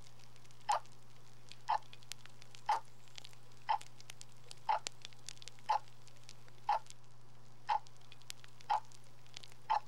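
A short tick repeats evenly about once a second, over a steady low hum and scattered faint crackling clicks.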